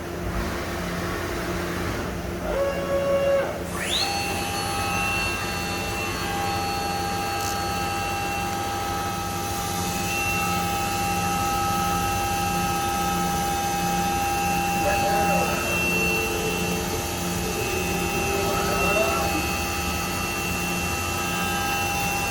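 Okuma five-axis CNC machining centre running, its spindle spinning up with a quick rising whine about four seconds in and then holding a steady high-pitched whine over the machine's constant hum.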